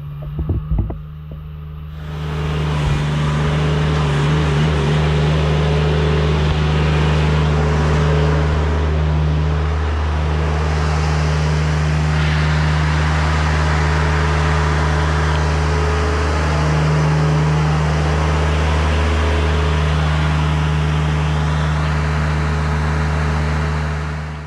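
Chinese mini excavator's diesel engine running steadily. It gets louder about two seconds in and eases off near the end.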